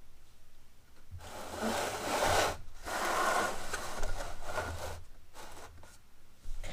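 Plastic wrench tray being handled, rubbing and scraping in two long strokes, followed by fainter handling noise.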